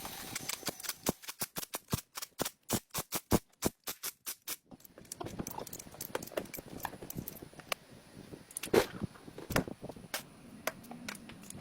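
Hand tools working on a car's metal parts: a quick, even run of sharp clicks, about five or six a second, that stops a little under five seconds in, then scattered knocks and clunks, the loudest about three quarters of the way through.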